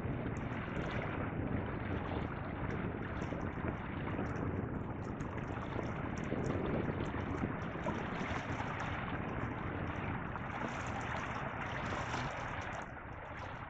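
Wind buffeting the microphone, a steady rumble, over small waves lapping and trickling on a pebble shore; the wind eases slightly near the end.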